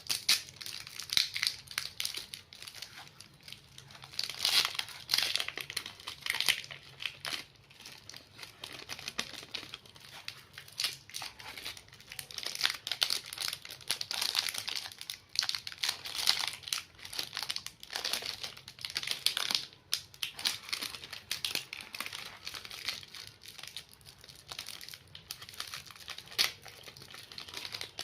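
Chocolate bar packaging being unwrapped by hand: irregular crinkling and rustling of the wrapper, with tearing sounds here and there.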